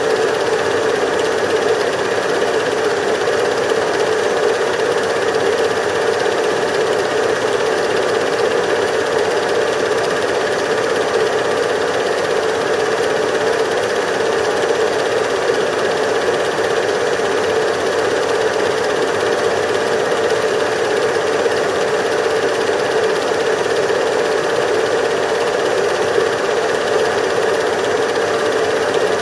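A cine film projector running: a steady mechanical whirr and clatter at an even level, unchanged by the picture cuts.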